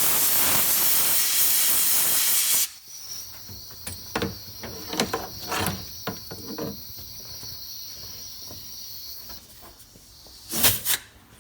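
Sandblaster blasting abrasive with a loud steady hiss that cuts off abruptly about three seconds in. Scattered knocks and clicks follow under a thin high whistle, then a short burst of blasting near the end.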